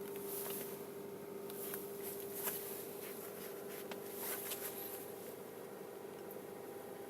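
Kia Ceed engine running after a cold start, a steady hum with a few faint, irregular clicks in the first half. The owner is trying to record a knock that shows up on cold starts.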